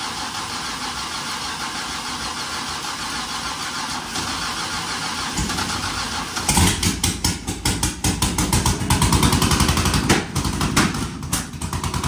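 5.3-litre LS V8 in a 1968 GMC Suburban cranking on the starter for about six seconds, then catching and running loud, a rapid crackle of firing pulses with no exhaust fitted.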